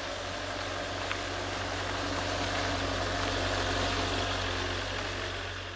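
Hymer motorhome's engine and tyres as it drives toward and past, getting louder to about four seconds in and then fading away.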